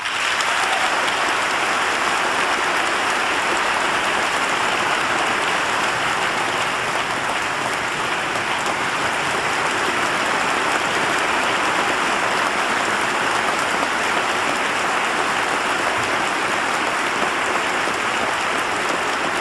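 Large audience giving a standing ovation: loud, dense, steady applause that breaks out all at once.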